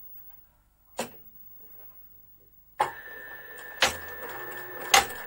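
A single sharp click about a second in. Then, just under three seconds in, a sewing machine starts running with a steady whir and rapid stitching ticks, broken by two louder clacks.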